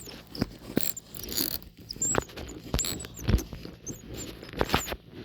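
A small, toy-sized spinning reel being cranked to bring in a hooked catch: irregular clicks and knocks from the reel and handle, with short high squeaks throughout.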